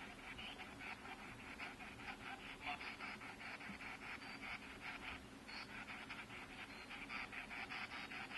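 Spirit box (ghost box) radio scanner sweeping through stations: a rapid, choppy stream of short static bursts, several a second, as it scans for a spirit's reply to a question.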